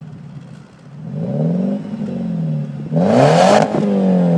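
BMW 318i E90 four-cylinder petrol engine breathing through a 335i rear exhaust section, revved twice: a first rise and fall, then a higher, louder rev about three seconds in with a harsh rasp, dropping back as the throttle is released.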